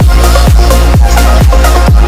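Electronic dance music with a steady four-on-the-floor kick drum, about two beats a second, over a heavy sustained bass line and a melodic synth part.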